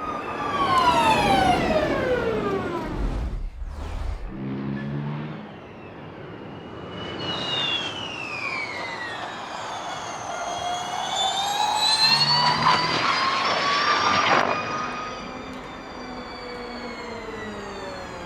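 Formula E electric race cars' high-pitched motor and gearbox whine, falling in pitch as a car slows or passes, then climbing steadily as one accelerates before cutting off sharply, followed by further falling whines. A low thud comes about three seconds in.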